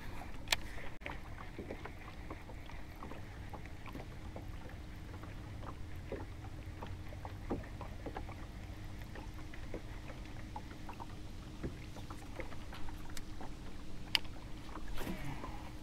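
Small fishing boat on the water: a steady low rumble with a faint steady hum, dotted with light clicks and taps, and a sharper click about half a second in and again near the end.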